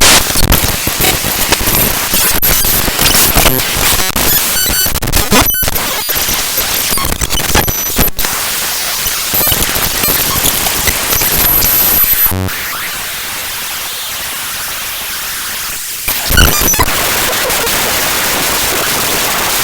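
Raw binary data of the gkmedias.dll library file played directly as audio: loud, harsh digital noise and static with crackling clicks. About twelve seconds in it drops to a quieter, even hiss, then jumps back up with a short burst a few seconds later.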